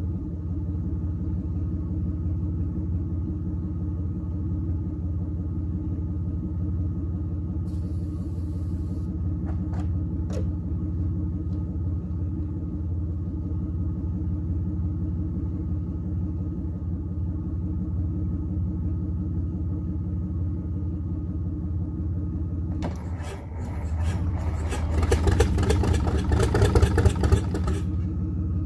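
Detroit Diesel 6-71 two-stroke inline-six diesel idling steadily after a cold start. About 23 seconds in it dips briefly, then is throttled up for a few seconds, running louder and rougher before settling back to idle.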